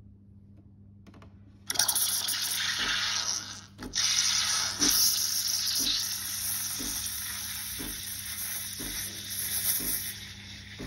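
De'Longhi Dedica EC685 steam wand hissing as it froths milk in a stainless steel jug. The steam comes on suddenly about two seconds in, with a low pulse about once a second under the hiss, and grows a little softer toward the end.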